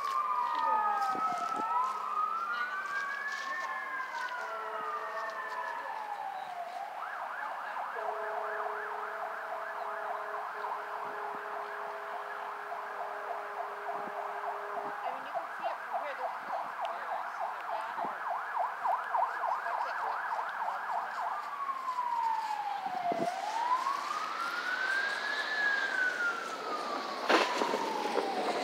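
Emergency vehicle sirens wailing in slow rising and falling sweeps, two overlapping at first. About seven seconds in, a siren switches to a fast yelp, several sweeps a second, for around fifteen seconds, then goes back to a slow wail.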